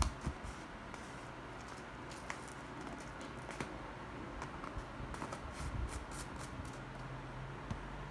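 Light clicks and rattles of a small plastic salt shaker being handled and its cap twisted open, with a cluster of quick ticks about five to seven seconds in. A faint steady hum runs underneath.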